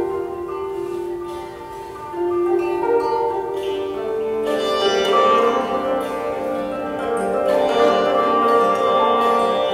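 Sitar and koto playing slow, drawn-out melodic lines together. The sound thins briefly after the start, then grows fuller from about halfway through.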